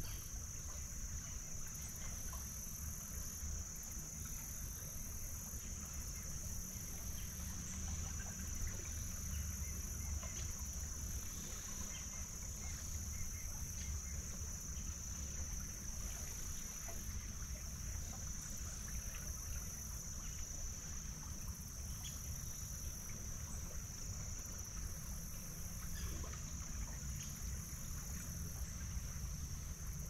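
Steady insect chorus, a continuous high chirring of crickets, over a low steady rumble.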